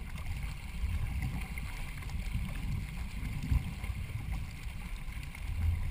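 Water washing and splashing along a racing canoe under way, with a low rumble of wind and water on the boat-mounted camera's microphone.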